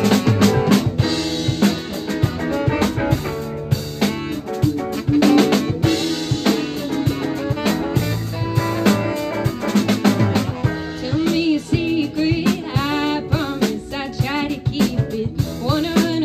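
A psychedelic jazz band playing live: a drum kit keeps up a busy beat of frequent hits under sustained electric guitar and bass notes. From about eleven seconds in, a wavering high melodic line rises above the mix.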